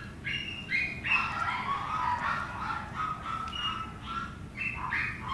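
Chihuahua puppy giving a run of short, high-pitched squeaks and whines, one after another with shifting pitch.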